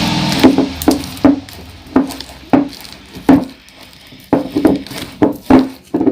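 Freshly activated toothpaste slime being stirred in a small pot with a utensil: sharp, irregular knocks and sticky clicks of the utensil against the pot, about one or two a second.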